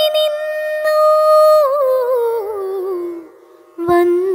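Background music: a woman singing a slow Malayalam song, holding one long note that then winds downward. The voice breaks off briefly near the end and comes back in.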